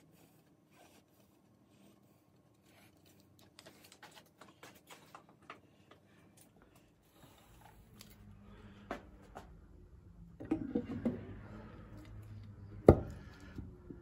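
Faint clicks and scrapes as grease is worked onto the edge of a Colchester lathe's headstock cover. Then comes rustling handling noise and one sharp knock about thirteen seconds in, as the cover is set onto the headstock.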